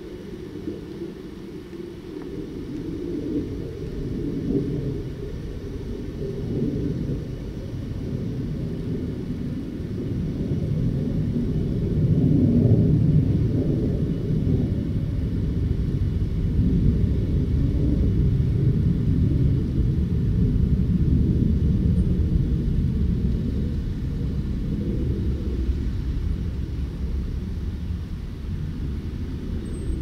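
Low, uneven rumble of heavy construction equipment at work, swelling to its loudest about twelve seconds in and easing a little near the end.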